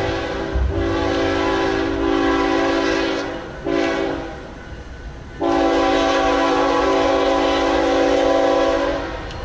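Diesel locomotive's five-chime air horn (Nathan K5HL) sounding the grade-crossing signal: the end of a long blast, then a long, a short and a final long blast, over the low rumble of the passing train.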